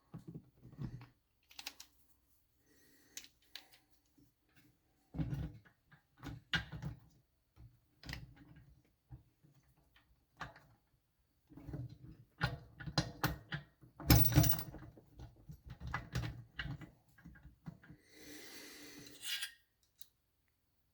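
Irregular clinks, knocks and clatter of motorcycle engine parts and tools being handled on a workbench, busiest about two-thirds of the way through, with a short rushing noise near the end.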